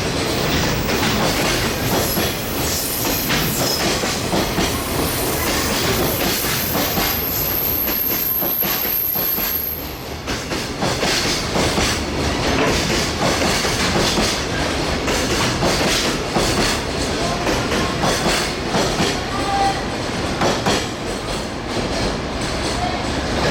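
A train running through the station at close range, its wheels clacking steadily over the rail joints, with a thin high squeal in the middle.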